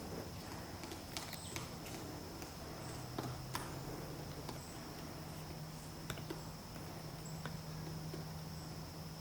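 Woodpecker tapping its bill against wood in irregular single knocks, a few seconds apart at most, not a drumming roll, over a steady high-pitched whine.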